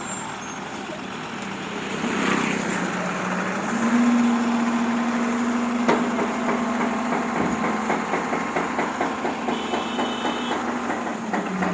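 Heavy construction vehicle's diesel engine running; about four seconds in its pitch steps up and holds as it revs, then drops back near the end. A rapid, even clatter rides on it through the second half, with a sharp click about six seconds in.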